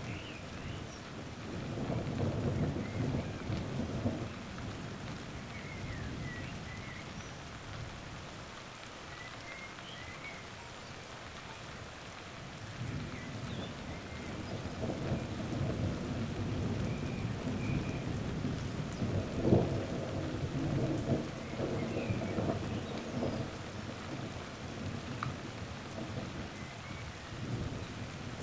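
Thunder rumbling over steady rain: a rumble about two seconds in, then a longer rolling rumble from a little before halfway, loudest about two-thirds of the way through.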